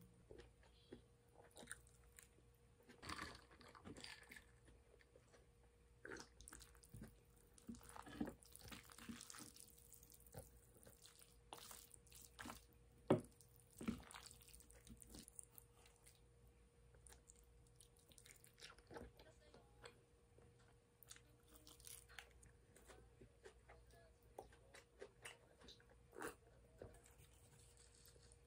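Faint eating sounds: a metal fork and spoon twirling spaghetti and tapping and scraping on a ceramic plate, with soft chewing. Scattered small clinks, the sharpest about 13 seconds in.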